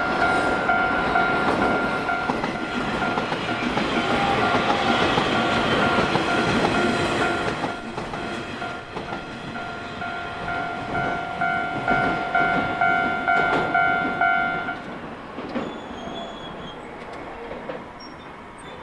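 Japanese level-crossing warning bell ringing steadily while a Nishitetsu electric train passes, its wheels clacking over the rail joints. The train fades after about 8 seconds and the crossing bell stops about 15 seconds in.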